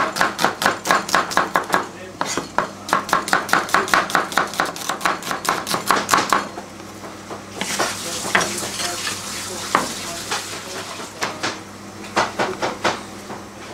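A chef's knife slicing a red onion on a cutting board: quick, even strokes about six a second, with a short break near two seconds in, stopping about six seconds in. After that, a steady hiss with occasional clicks and taps.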